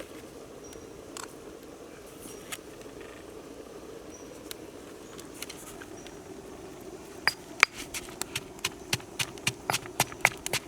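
Steady low background hum, then from about seven seconds in a run of sharp, evenly spaced knocks, about three a second: the rhythmic strokes of food preparation.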